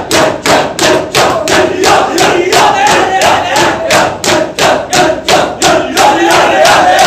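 Matam: a crowd of Shia mourners beating their chests in unison with open hands, an even rhythm of about three hard slaps a second. Loud shouted chanting from the men runs over the beat.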